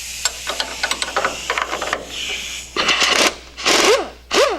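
Air-powered wrench spinning a bolt off the strut rod mount: a steady hiss with rapid clicking for a couple of seconds, then three short bursts near the end, the last two whining up and down in pitch.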